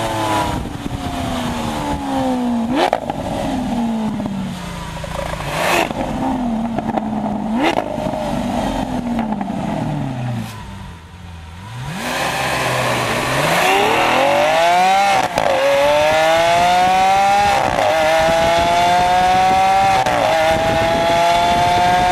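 Lamborghini Aventador Roadster's V12 engine slowing with the revs falling, through three throttle-blipped downshifts that each jump the pitch up sharply with a crack from the exhaust. Then, heard from inside the open cabin, it accelerates with the revs climbing through three quick upshifts.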